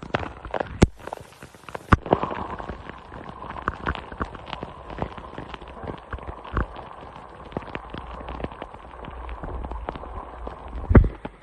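Irregular small clicks, taps and rattles of hands handling keyboard parts, with a few sharper clicks near the start and near the end, over a faint steady whine.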